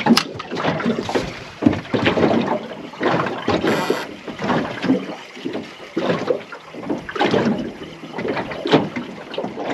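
Water slapping and sloshing irregularly against the hull of a small aluminium boat drifting at sea.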